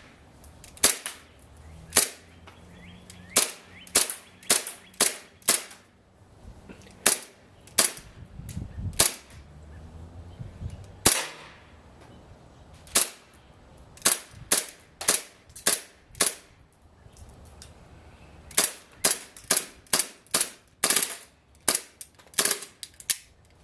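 Socom Gear M9A1 gas blowback airsoft pistol firing on green gas: a long series of sharp single shots, some two dozen, at an uneven pace, with quicker strings in the middle and near the end.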